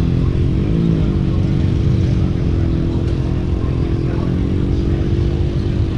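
A motorcycle engine running, briefly rising and falling in pitch about a second in, then holding a steady note.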